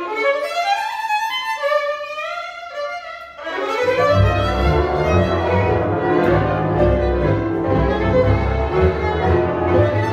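A lead violin plays a free, gliding melody on its own. About three and a half seconds in, the rest of the Hungarian Romani band comes in together: cimbalom, double bass, second violin and viola.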